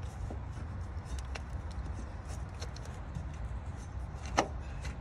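Scattered light metallic clicks and taps of hand tools and parts being handled at the engine, with one sharper clink about four seconds in, over a steady low hum.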